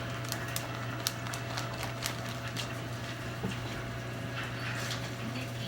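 Sausages sizzling in a frying pan, with scattered sharp pops and crackles of spitting fat over a steady low hum.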